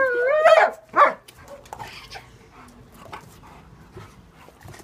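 Rhodesian ridgeback vocalizing: a drawn-out call that rises in pitch, then one short sharp call about a second in. Only faint scattered clicks follow.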